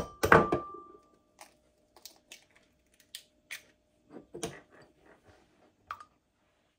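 An egg knocked sharply on the rim of a glass mixing bowl at the start, the bowl ringing briefly. Small clicks and crackles follow as the shell is pried apart, with the egg dropping into the bowl near the end.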